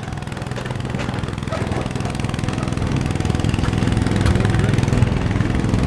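An engine idling steadily, getting gradually louder, with wind on the microphone.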